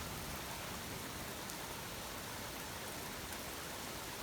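Steady rain falling during a thunderstorm, an even hiss of rain on surfaces with no thunder rising above it.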